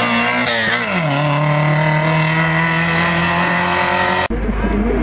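Rally car engine at high revs passing close by. The revs drop sharply about a second in, then the note holds steady. Near the end the sound cuts off abruptly and a low rumble takes over.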